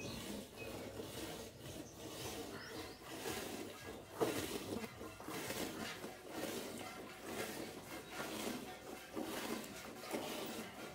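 Water buffalo being milked by hand: jets of milk squirting into a steel pail in a steady rhythm of about two squirts a second, with one louder knock about four seconds in.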